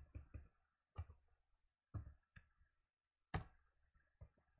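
Faint computer keyboard keystrokes: a few scattered key clicks, with a sharper, louder one a little over three seconds in.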